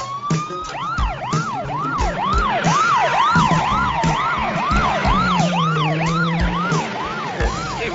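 Police car sirens: a rising wail that switches within the first second to a fast yelp, rising and falling about twice a second, with a second siren overlapping higher up and car engines beneath.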